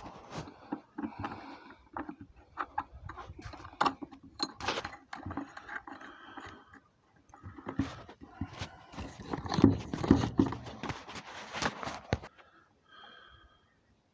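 Irregular knocks, clicks and scraping of hand work on an object, stopping near the end.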